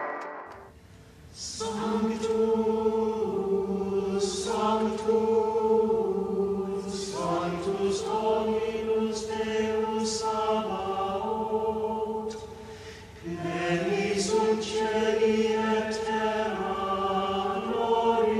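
Choral music: a choir singing long held notes in slow phrases. It starts about a second and a half in and breaks off briefly about two-thirds of the way through.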